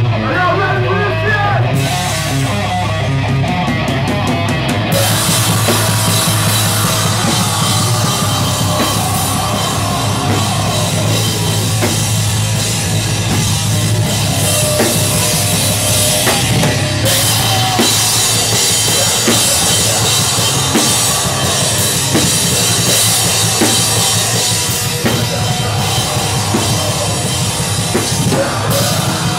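Live band playing loud heavy rock: electric guitar over a full drum kit, with cymbals filling in about five seconds in.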